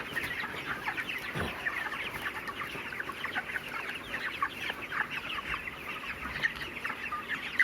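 A flock of 29-day-old broiler chickens calling, with many short chirps and clucks overlapping continuously.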